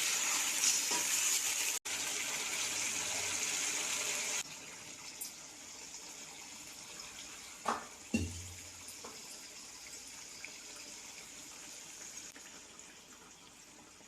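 Chicken pieces sizzling in hot oil in a kadai, as they begin to fry with onion, tomato and ginger-garlic paste. The sizzle is loud for the first few seconds, then much quieter, with a couple of knocks of a spoon against the pan around the middle.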